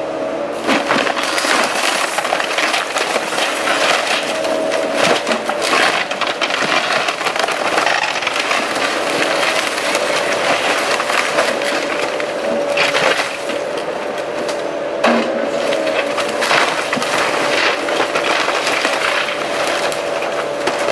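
Excavator demolishing a wood-framed house: timber framing, siding and roofing cracking, splintering and crashing down in irregular bursts. Under it runs the excavator's steady drone.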